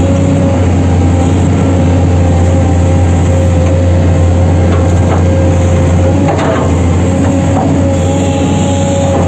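A heavy machine's diesel engine running steadily at constant speed nearby, with a deep hum and a steady whine over it. A few short metal knocks come about halfway through and again a little later.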